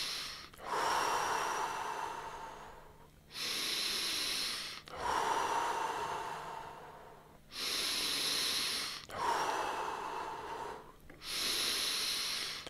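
Deep, audible breaths taken one after another in a steady rhythm, each in-breath and out-breath distinct, about three full breath cycles. This is a round of paced deep breathing in the Simplified Tummo / TT5 style.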